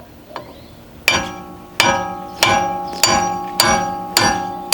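Hammer blows on a steel wheel stud in a Ford Mustang's rear hub, driving the stud through. The blows start about a second in and come about every 0.6 seconds, six in all, each with a ringing metallic tone.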